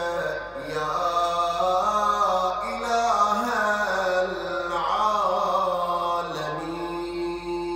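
A man's solo voice chanting an Arabic du'a in a melodic recitation style, in long flowing phrases that glide in pitch. Near the end he settles onto one long held note.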